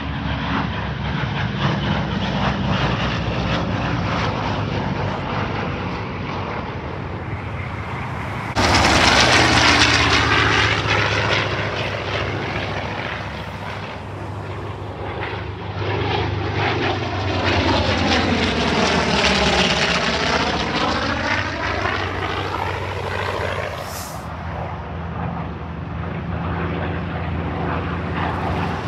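Vintage piston-engine propeller warplanes making low passes, among them a twin-engine P-38 Lightning, their engines droning continuously. About nine seconds in the sound gets suddenly louder. Around twenty seconds in, the engine sound sweeps down and back up as a plane passes.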